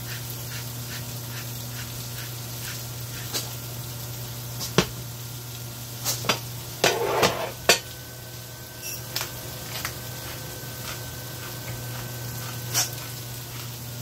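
Salt and pepper grinders clicking in quick strokes over a skillet of chicken pot pie filling, over a steady low hum. A few sharp clacks and a short rough burst come about five to eight seconds in.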